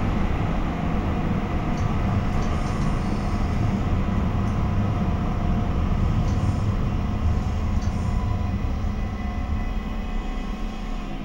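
Steady rumble of a Stadtbahn light-rail car heard from inside as it runs through a tunnel, with wheel and running-gear noise and a faint steady whine. It eases off slightly near the end as the car slows into an underground station.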